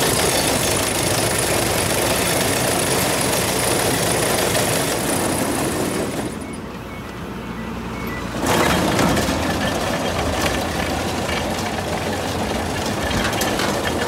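Engine running steadily with a dense clattering of machinery over it. The noise eases off for about two seconds a little past the middle, then comes back as loud as before.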